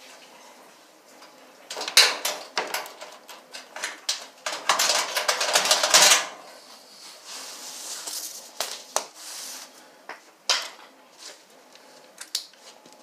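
Metal clicks and rattling as the power cord and its fittings are worked loose from the dryer's terminal block on the sheet-metal back panel. The clicks start about two seconds in and crowd into a dense clatter around five to six seconds in, then thin out to scattered clicks.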